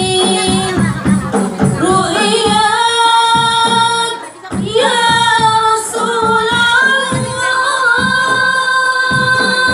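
A woman singing a sholawat, an Islamic devotional song, in a long ornamented line, over a steady beat of hand drums. After a short break about four seconds in, she holds one long note through the rest.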